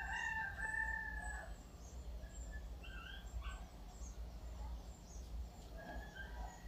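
A rooster crowing faintly, one long call at the start, followed by shorter calls about halfway and near the end, over a steady low hum.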